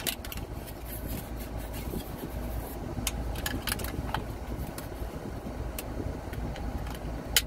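Metal clipboard clip clicking and scraping against a glass Coke bottle's crown cap as it is levered in an attempt to pry the cap off, bending the clip; scattered sharp clicks with the loudest snap near the end, over a steady low rumble inside a car.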